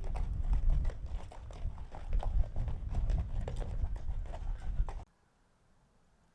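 Irregular knocking and clattering over a low rumble, cutting off abruptly about five seconds in.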